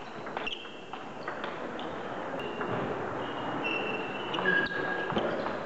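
Table tennis hall sounds: many short high squeaks of sports shoes on the floor, one held a little longer about four and a half seconds in, with a few scattered sharp clicks of table tennis balls against bats and tables.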